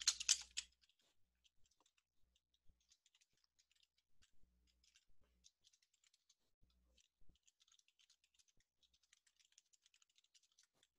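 Faint, irregular typing on a computer keyboard: many small key clicks as an equation is entered.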